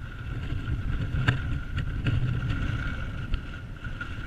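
Wind buffeting the microphone on a boat on a choppy lake, a low rumble with water noise, over a steady thin high hum. A few sharp clicks come through, the loudest about a second and a quarter in.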